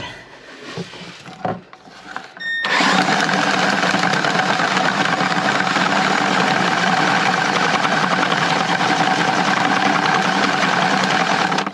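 Cordless drill spinning a drum drain auger, feeding its steel cable into a clogged kitchen sink drain line. The motor starts about two and a half seconds in and runs as a steady whir, stopping right at the end.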